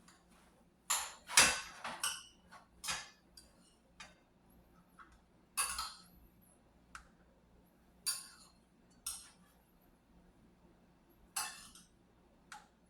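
A spoon clinking and scraping against dishes while rice is scooped into a small souffle cup: about eight irregular short clinks and knocks, the loudest about a second and a half in.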